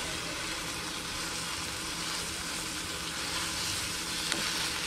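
Snapper fillets frying in a stainless steel skillet with a steady sizzle, while a spatula is worked under them to flip them.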